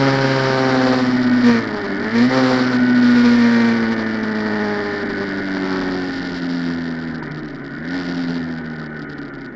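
Honda CG 150's single-cylinder four-stroke engine running through a Roncar Aluminium aftermarket exhaust, its note sliding gradually lower in pitch and fading as the revs drop. About two seconds in the pitch dips sharply and comes back, and near the end it rises briefly once more.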